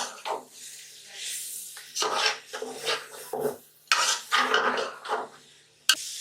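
Kitchen utensils clattering and scraping in irregular strokes, with a few sharp knocks, one of them near the end.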